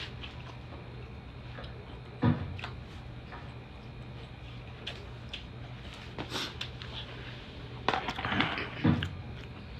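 Scattered cracks and clicks of king crab leg shells being broken and handled while eating, a few apart and then a cluster near the end, over a steady low hum.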